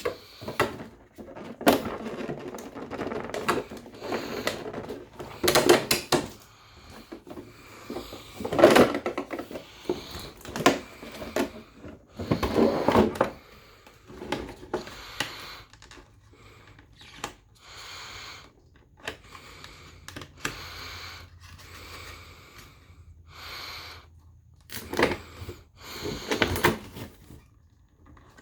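Hands working on toy packaging: irregular clicks, knocks and rustles of cardboard and plastic, with a few louder clatters.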